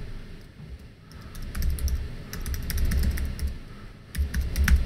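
Typing on a computer keyboard: a quick, uneven run of key clicks with dull low thumps underneath.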